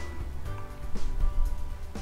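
Background music with a steady beat, a strong bass and sustained melodic notes.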